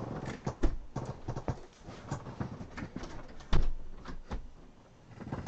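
Irregular series of clicks and knocks, about a dozen, the loudest about three and a half seconds in.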